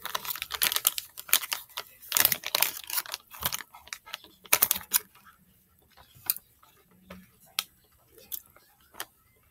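Chocolate bar wrapper crinkling and rustling as it is handled and opened, dense crackles for the first few seconds, then only a few scattered clicks.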